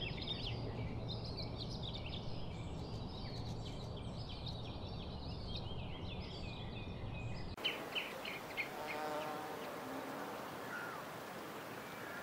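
Many birds chirping and calling in quick short notes over a steady low rumble. About seven and a half seconds in this cuts to a quieter outdoor bed with a few sharp chirps and a faint bee buzz.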